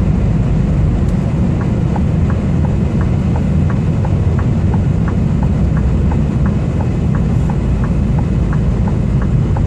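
Steady low engine and road rumble inside a moving truck cab, with a blinker relay ticking from about a second and a half in, alternating higher and lower clicks about three times a second.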